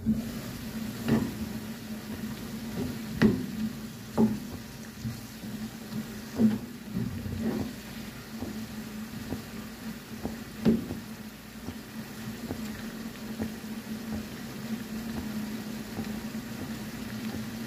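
Pancit canton noodles simmering in sauce in a nonstick wok, bubbling and sizzling as a wooden spatula stirs and tosses them, with about six sharp knocks of the spatula against the pan in the first eleven seconds. A steady low hum runs underneath.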